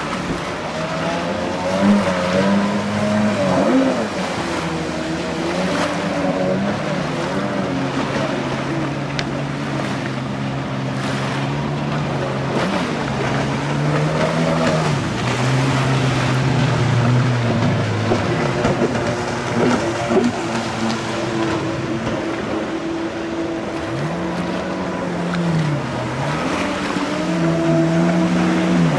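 Stand-up jet ski engines running hard on open water, the pitch climbing and dropping every few seconds as the throttle is worked through turns.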